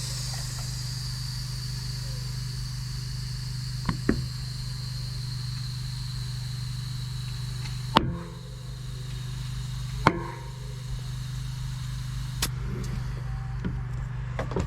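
Air hissing from an air chuck into a tubeless Continental Kryptotal downhill-casing mountain bike tire for about eight seconds, then loud sharp pops about eight and ten seconds in, with smaller ones about four seconds in: the tire beads snapping onto the rim, seated dry without soap. A steady low hum runs underneath.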